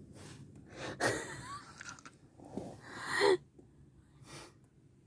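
A sleeping man's noisy, irregular breaths and snorts, with a short pitched grunt about three seconds in, as he begins to stir.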